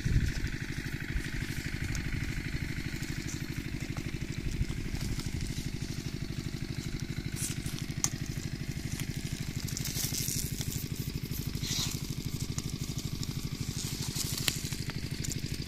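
A small engine running steadily with a fast, even beat, with a few sharp knocks of a hoe striking wet mud.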